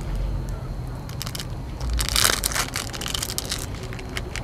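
Plastic wrap crinkling and rustling as raw marinated pork skewers are peeled off their foam trays, with a denser crackling burst about two seconds in.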